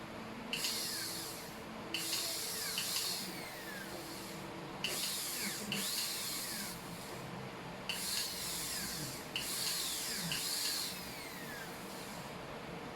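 High-speed dental handpiece (dental drill) run in about six short bursts of a second or so each, cutting the cavity preparation in a lower first molar; each burst is a high hiss with falling whistling tones.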